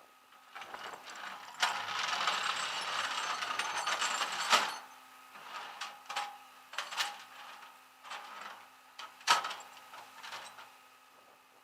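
Mechanical rattling and clanking, like a ratchet or gears being worked: a dense rattle for about three seconds that ends in a sharp clank, then a string of separate clicks and knocks.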